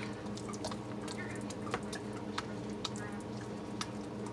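Spatula stirring thick hot-process soap paste in a plastic bowl: soft squishing and scraping with many small irregular clicks. A steady low hum runs underneath.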